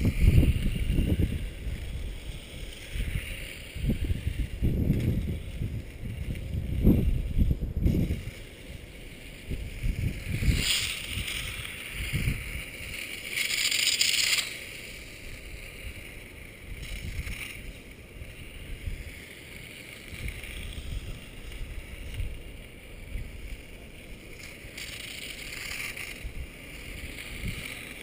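Wind buffeting the microphone in gusts, and a few times the whir of a Silverlit Ducati toy RC motorcycle's small electric motor as it passes, around a third of the way in, about halfway, and near the end.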